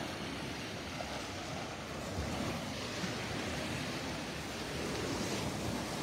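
Small waves breaking and washing up on a sandy beach, a steady surf wash, with some wind on the microphone.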